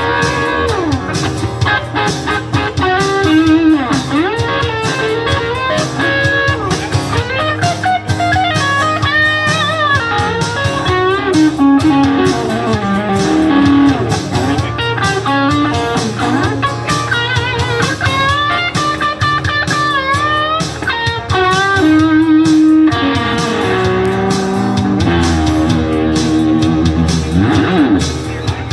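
Live instrumental guitar break: an electric guitar plays a bluesy solo with bent notes over a strummed acoustic guitar rhythm.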